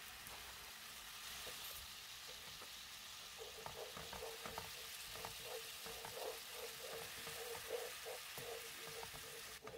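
Soy-and-chili seasoning sauce sizzling faintly in a hot nonstick frying pan as it comes to a boil. From about three and a half seconds in, a spatula stirs it, with a run of short scraping strokes across the pan.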